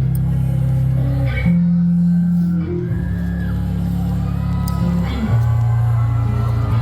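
Live band playing the instrumental opening of a song through a venue PA: deep held bass notes that change every second or two, with guitar lines above them.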